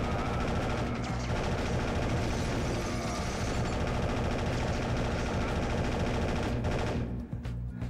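Sustained automatic assault-rifle fire: a long, dense run of rapid shots that stops about seven seconds in.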